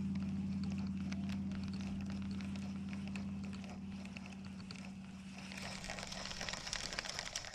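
Steady low hum of a distant boat engine, slowly fading away. A crackling hiss comes in for the last two seconds.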